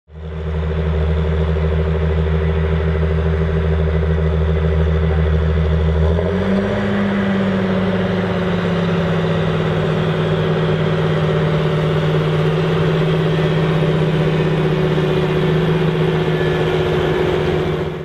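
John Deere 8530 tractor's six-cylinder diesel engine running steadily under load while pulling a seven-furrow plough. About six seconds in, the deep low drone drops away and the engine note rises briefly, then settles back to a steady pull.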